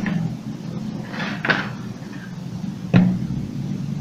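Handling noises as a newly soldered power cord is fitted into an opened hair clipper's housing: a short scrape about a second and a half in, and a sharp click about three seconds in.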